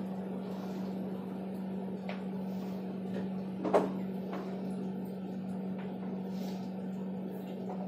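Chalk drawing lines on a blackboard: faint scratchy strokes, and one sharp tap of the chalk on the board a little under four seconds in, over a steady low background hum.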